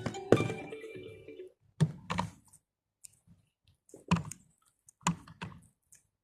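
Scattered sharp clicks and knocks of hardware being handled and fitted, the first followed by a brief ringing tone about a third of a second in.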